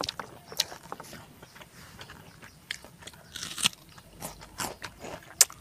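A person biting and chewing crisp food close to the microphone, with irregular sharp crunches; the loudest come about three and a half seconds in and near the end.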